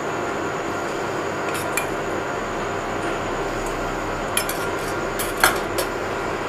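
A metal spoon clinking lightly against stainless steel bowls while spices are spooned into the mix: a few short taps, most of them in the second half, over a steady background hiss.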